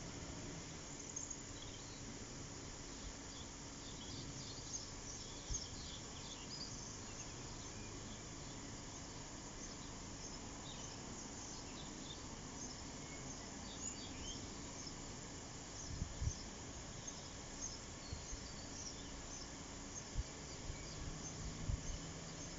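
Faint outdoor background with small birds chirping now and then, and a few short low thumps in the later part.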